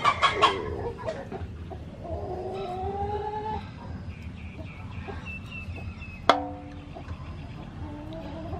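Chickens clucking and calling, including one long, slightly rising call and a quick run of short high notes. About six seconds in comes a single sharp metallic clink that rings briefly.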